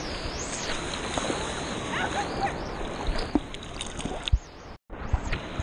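Seawater sloshing and splashing right against a camera held at the surface in light surf, with scattered small splashes and knocks. The sound drops out for a moment about four and a half seconds in.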